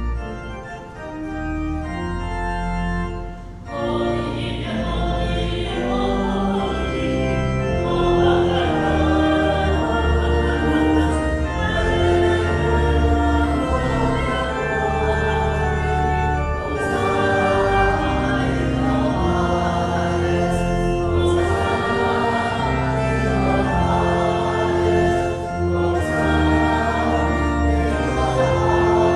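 Church organ playing a slow piece in held chords. It is softer for the first few seconds and fuller from about four seconds in.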